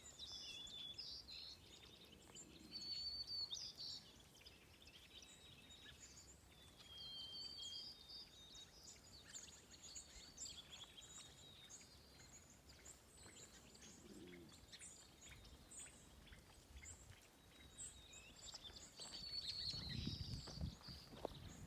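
Faint songbirds chirping and singing, short high whistled phrases and twitters repeating all through. A few low thumps come in near the end.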